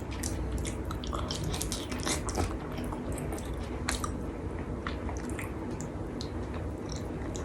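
A person chewing food close to the microphone: irregular small moist clicks and smacks over a low steady hum.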